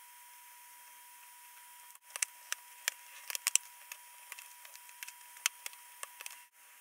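Scissors snipping thin cereal-box cardboard: a run of sharp, irregular clicks beginning about two seconds in and stopping shortly before the end, over a faint steady hiss.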